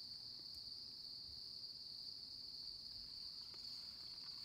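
Steady, high-pitched insect chorus of crickets or katydids trilling without a break, with a few faint ticks near the end.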